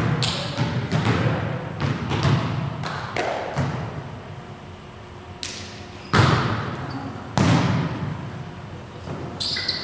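Volleyball being hit and bouncing, with thuds of players' feet on the gym floor: a string of sharp knocks, the loudest about six and seven seconds in, each echoing in the hall.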